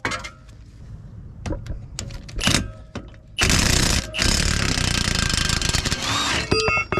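Cordless impact wrench hammering out a 16 mm front caliper bracket bolt, in two runs: a short burst about three and a half seconds in, then a longer one of about two seconds. Light metal clicks as the socket goes on come before it, and a few ringing metal clinks follow at the end.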